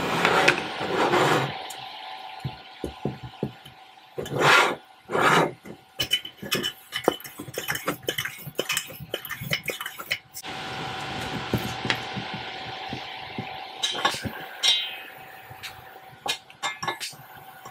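Light metal clicks and clinks of a lighter and hands working at the burner and pot grate of a Coleman 502 white-gas stove as it is tried for lighting. Two short loud puffs come about four and five seconds in, and a steady hiss runs through the second half. The burner does not catch.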